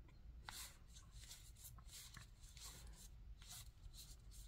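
Faint papery flicks and slides of game cards being thumbed one by one off a stack from one hand to the other, irregular soft ticks a few times a second.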